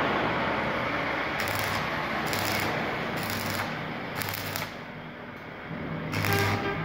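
Stick arc welding on a steel grill: the electrode arc crackles and hisses, fading about four and a half seconds in, with a low hum coming and going.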